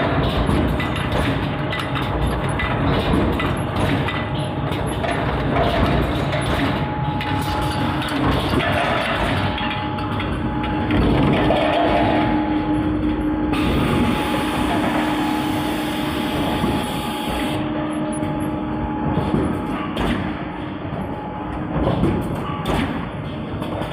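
RL-6 high-speed automatic blow moulding machine running in production, a continuous mechanical clatter with many rapid clicks and knocks over a steady hum.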